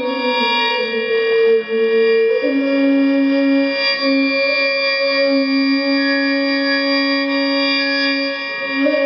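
Flute playing a slow melody of long held notes, stepping between a few pitches.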